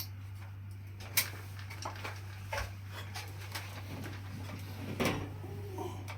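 Scattered sharp clicks and knocks of hand work with tools and parts, the loudest about a second in and another near the end, over a steady low hum.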